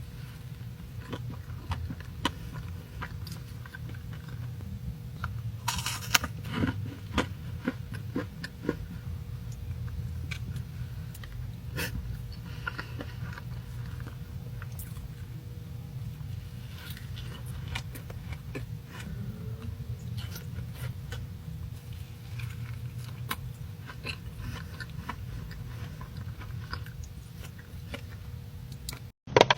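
Close-miked eating of pastries: bites and chewing with crisp crunches and small clicks, over a steady low hum. The crunchy bites cluster about six to nine seconds in.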